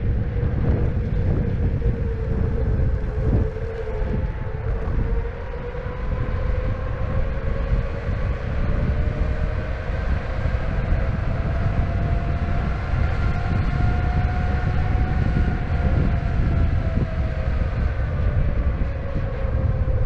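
Electric skateboard's direct-drive hub motors whining while riding. The pitch climbs slowly for about ten seconds and then falls again as speed rises and drops, over a heavy low rumble of wheels on asphalt and wind.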